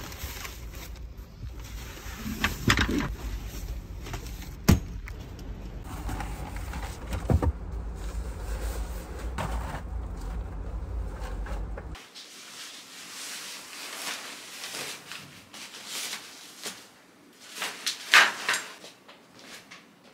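Bagged camping chair and table being handled and packed into a car's trunk, with several knocks and bumps over a low steady rumble. After a cut the rumble drops away, leaving rustling and handling of bags and bedding indoors, loudest about 18 seconds in.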